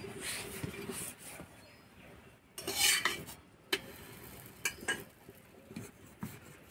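A wooden rolling pin works paratha dough on a stone board, then comes a short loud rush of noise and a string of sharp clinks and knocks from metal utensils around an iron griddle.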